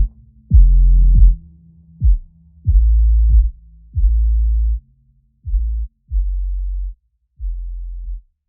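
Background electronic music made of deep, held bass notes, each starting with a sharp hit. The notes thin out and fade toward the end.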